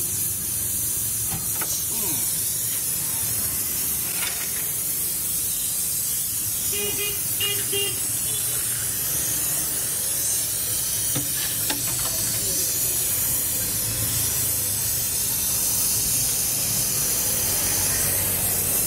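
Hand-held gas brazing torch hissing steadily as its flame heats a refrigerator compressor's copper pipe joint to melt the silver brazing.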